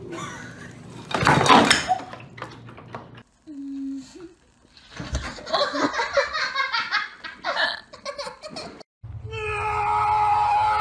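People laughing hard for several seconds, the loudest stretch in the middle. Before it comes a loud, sudden noise; after it, a steady held sound.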